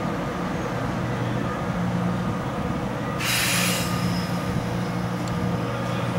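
Korail Line 1 electric train moving through the station: a steady rumble of wheels on rail with a low motor hum, and a brief burst of hiss about three seconds in.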